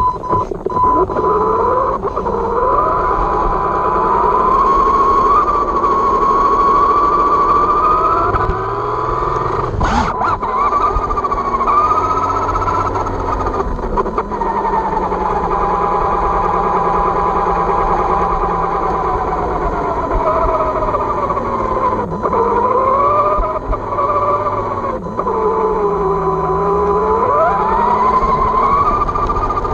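Losi 22S short course truck's electric motor and drivetrain whining as it drives, the pitch rising and falling again and again with speed. A steady high tone runs underneath, and there is one sharp knock about ten seconds in.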